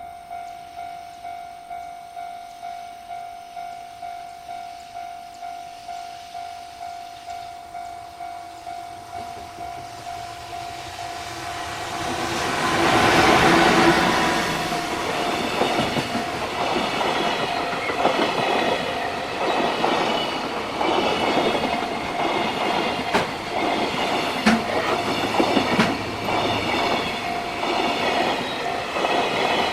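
Japanese level-crossing alarm ringing steadily in a quick repeating beat, then a JR Freight train arrives about twelve seconds in and its wagons pass with a rhythmic clickety-clack of wheels over the rail joints.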